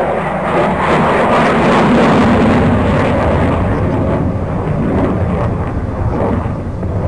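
Fighter jet's engine noise during a low display pass: a loud, steady jet noise that swells about two seconds in and then slowly fades as the aircraft draws away.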